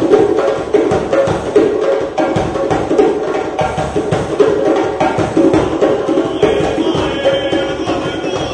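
Two djembe drums played by hand together in a fast, steady rhythm of sharp slaps and deeper tones.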